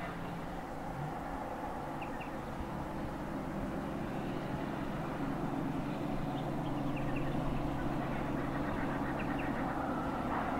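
Diesel engine of a B-double semi-trailer truck running on the highway with a steady droning note that steps up slightly about a second in and grows a little louder. A few short high bird chirps come over it.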